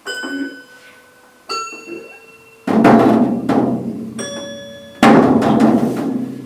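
Small hand percussion instruments struck one at a time for cartoon sound effects: three ringing, bell-like notes and two loud drum hits that ring on and die away slowly.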